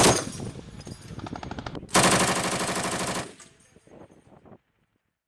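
M2 .50-calibre heavy machine gun firing: a burst ends just at the start, echoes and scattered shots follow, and a second burst of rapid fire comes about two seconds in and lasts just over a second before the echo dies away.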